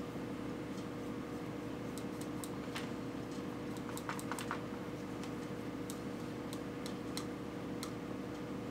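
About a dozen light clicks and taps, irregularly spaced and bunched in the middle, over a steady low hum.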